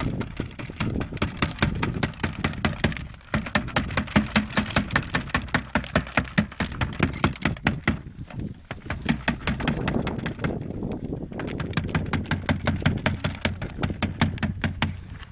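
Dried luffa gourd being shaken hard, its loose seeds rattling inside the fibrous shell as a rapid run of dry clicks and knocks, with a few brief pauses.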